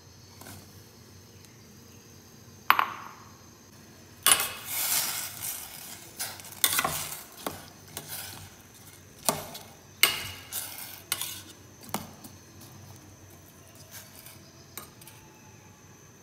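Diced apple tipped from a bowl into a stainless-steel saucepan of soaked dates, a sharp knock then a rush of pieces tumbling in, followed by a spoon stirring and clinking against the steel pan in a run of scrapes and knocks that fades to light taps.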